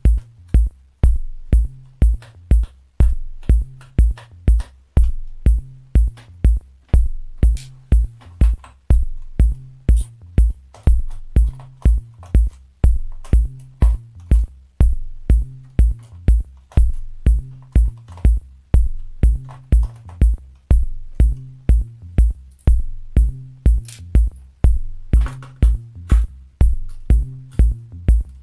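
Electronic background music with a steady drum-machine beat, about two kicks a second, over a bass line.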